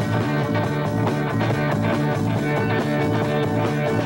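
Upbeat rock-style music with electric guitar and a steady bass line and beat.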